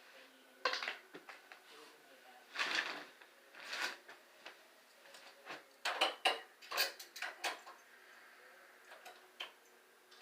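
Metal police restraints being handled, a series of metallic clicks and rattles. A quick run of sharp clicks comes about six to seven and a half seconds in.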